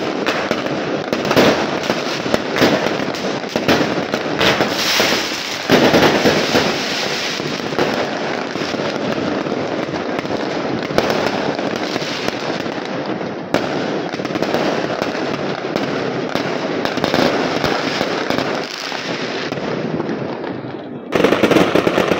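Aerial fireworks going off in a continuous barrage of bangs and crackling, with many shells bursting at once. A louder cluster of bangs comes about a second before the end.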